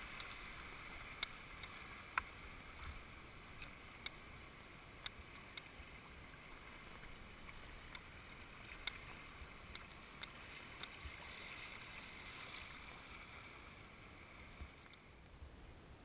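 Shallow river water rushing over riffles around a canoe, a steady water hiss that dies down near the end as the river turns calm. Scattered sharp clicks and ticks are heard through it.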